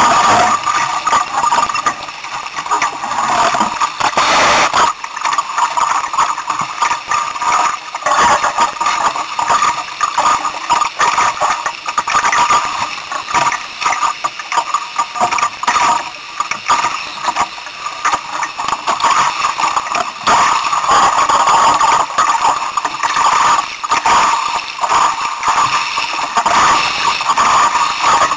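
Wind buffeting the microphone and water rushing along the hull of a 1962 Sunfish sailing dinghy under sail in strong gusts: a loud, continuous rush that rises and falls quickly.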